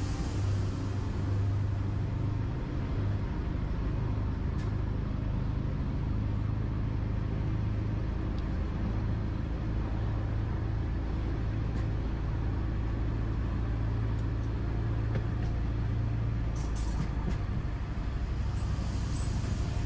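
Work locomotive running along the rails, a steady low engine hum with running noise, and a few faint ticks.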